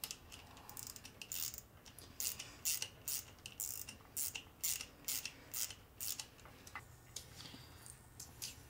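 Small socket ratchet clicking as a nut is tightened onto a wire's ring terminal, in short runs of clicks about two or three a second, stopping about six seconds in. Fainter handling sounds follow.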